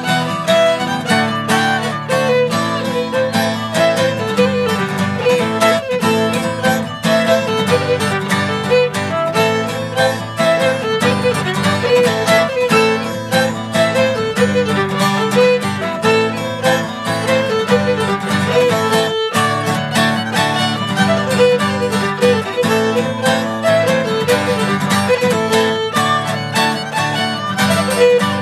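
Fiddle and acoustic guitar playing an Irish polka: the fiddle carries a quick, lively melody over the guitar's rhythmic chord accompaniment.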